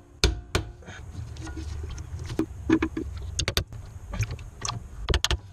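Click-type torque wrench tightening hub bearing bolts: a series of sharp metallic clicks, several in quick pairs, as the wrench breaks over twice at each bolt, the sign that the set torque is reached.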